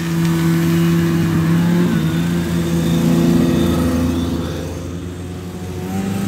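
Vintage two-stroke snowmobiles riding past close by one after another, their engines running steadily, loudest in the first few seconds and then fading, with the next sled's engine coming up near the end.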